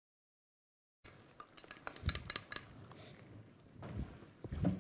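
Block of cheese grated on a flat metal hand grater resting on a wooden board: scratchy rasping strokes with small clicks and a few dull knocks, starting after about a second of silence.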